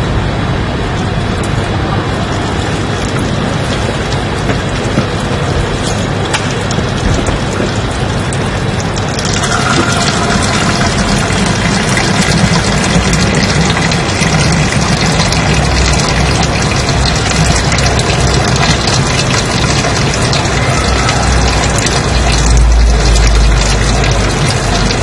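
Continuous white-noise-style rushing hiss spread across all pitches. It turns brighter and harsher about nine seconds in, and a deeper rumble swells near the end.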